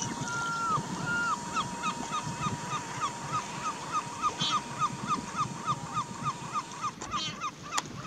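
Large gull giving its long call: two drawn-out notes, then a fast series of short falling yelps, about three a second, over a thin steady high tone and the low wash of wind and water. A sharp click near the end.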